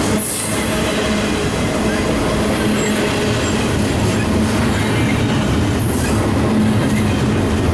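Double-stack intermodal freight train's well cars rolling past at close range: a steady, loud rumble of steel wheels on the rails.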